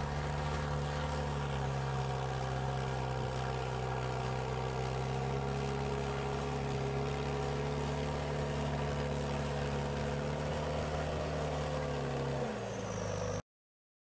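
Case IH 120 four-wheel-drive tractor's diesel engine running steadily under load while pulling a tillage implement through the soil. Near the end the engine note drops, then the sound cuts off abruptly.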